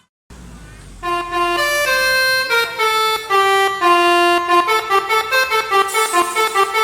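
Bus 'telolet' multi-tone horn playing a tune, starting about a second in: steady notes stepping up and down in pitch, then quick repeated toots about three a second near the end.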